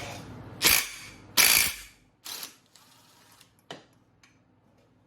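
Clatter of hand tools and metal clutch parts during a clutch teardown: two short rattling bursts in the first two seconds, the second the loudest, then a smaller one and a few light clicks.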